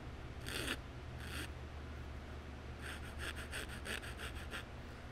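Hand file strokes on a Luger's wooden grip: two slow strokes in the first second and a half, then a quick run of about eight short strokes from about three seconds in. The file is taking off the high spots shown by black transfer marks to fit a repair into the chipped grip.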